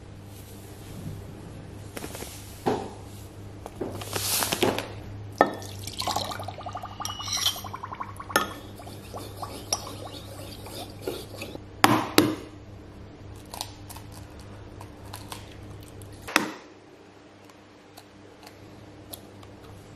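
Sugar poured from a bag into a glass Pyrex measuring jug, then liquid poured in, its pitch rising as the jug fills. Clinks of glass and a sharp knock follow, then light taps near the end as an egg is cracked.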